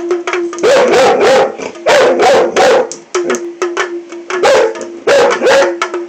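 A dog barking in repeated bursts along with rapid tapping on a small hand drum with a painted head.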